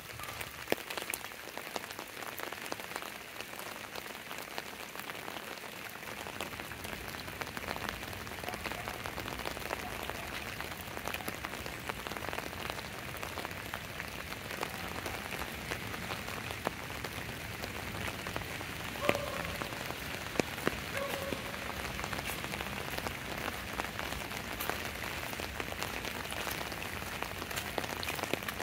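Steady rain falling, with many close drops ticking sharply.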